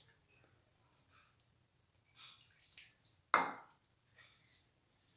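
Hand mixing crumbly chapati dough in a stainless steel bowl: soft scraping and squishing, with a splash of water landing in the bowl a little over three seconds in.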